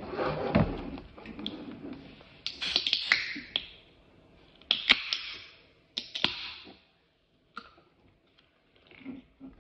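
Aluminium soda cans being cracked open: sharp clicks of the pull tabs, each followed by a short fizzing hiss of carbonation escaping, several times over, with a thump near the start.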